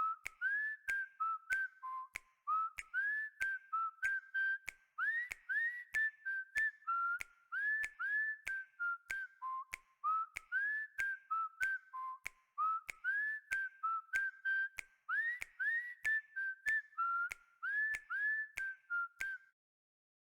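Honor 8A phone ringtone: a whistled-sounding tune of short rising notes over a steady ticking beat of about two to three ticks a second, which stops shortly before the end.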